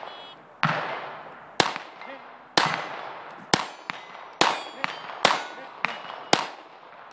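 Handgun shots fired at steady pace, about one a second, seven in all, each echoing off the berm. Between them come the clang and ring of steel plate targets being hit.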